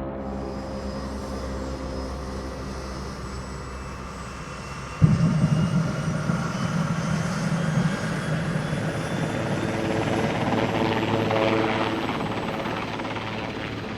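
A propeller aircraft engine drones steadily; about five seconds in, a de Havilland Otter seaplane's engine starts abruptly and runs, building up. Near the end a Sikorsky S-61N helicopter approaches.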